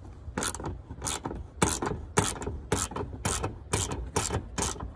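Ratchet wrench with a 10 mm socket clicking in short bursts, about twice a second, as the handle is swung back and forth to unscrew a bolt.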